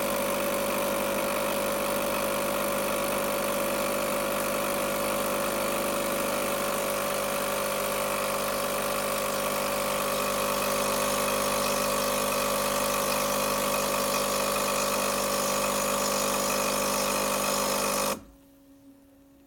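Coffee machine running with a steady mechanical hum, then cutting off suddenly near the end and leaving only a faint hum.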